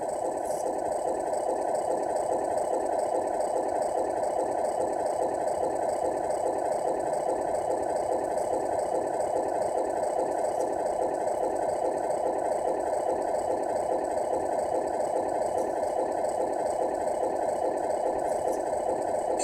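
Simulated diesel truck engine idling from the Tamiya MFC-01 multi-function unit's sound module, played through the model's onboard speaker: a steady, evenly pulsing idle.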